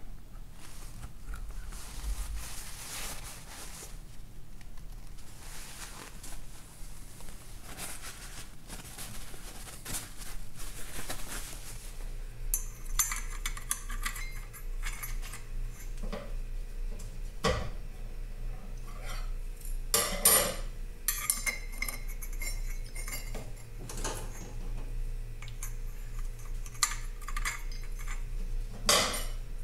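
Clutch plates of a multi-plate wet clutch clinking and scraping as they are handled and slid into the clutch basket. Softer handling noises come first, as oil-soaked bonded plates are lifted from a tub of oil. Sharper metal clinks follow in the second half, several of them louder, as the plates go into the basket.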